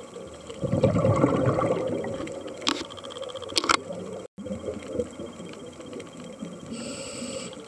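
Underwater sound through a camera housing: a scuba diver's exhaled bubbles rushing for about two seconds, a few sharp clicks, then a short high hiss near the end.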